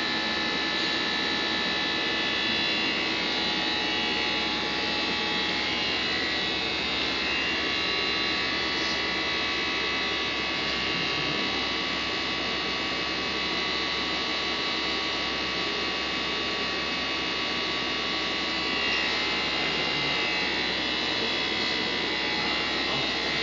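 Steady electric hum with several high whining tones from a running UV flatbed printer and its cooling equipment.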